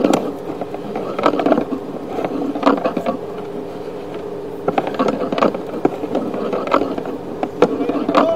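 Sewer inspection camera on its push cable being fed down a sewer pipe: a steady buzzing hum, broken by irregular clicks and scrapes every second or so.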